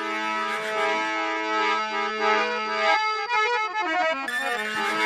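Harmonium playing an instrumental interlude: a melody over a held low drone note, with a quick run of notes about three seconds in.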